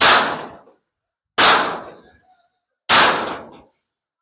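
Heavy hammer blows during demolition: three sharp, clanging strikes about a second and a half apart, each dying away quickly.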